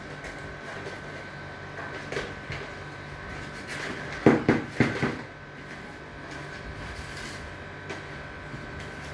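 Kitchen scraps and eggshells being dropped into a cut-open plastic jug and the jug handled, a short cluster of knocks and rattles about four seconds in, with a few lighter clicks before and after over a steady faint high hum.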